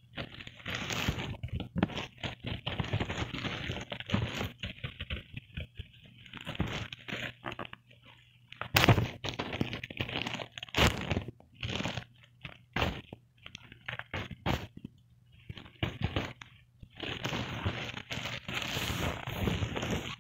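Close-miked crinkling and rustling of a plastic courier mailer bag as fingers rub, scratch and tap on it, with sharp clicks and crackles scattered through and a few brief pauses.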